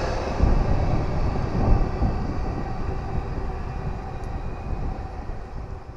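Passenger train cars rolling away down the track, their rumble fading steadily as the train recedes.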